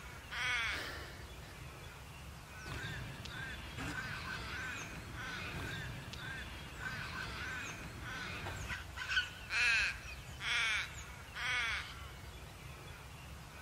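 Crows cawing: one call about half a second in, fainter calls through the middle, and a run of louder caws about a second apart near the end.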